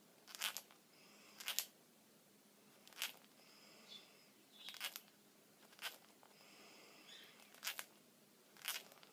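A small pet animal making short happy noises: about seven brief, breathy sounds roughly a second apart, a few with a faint high squeak.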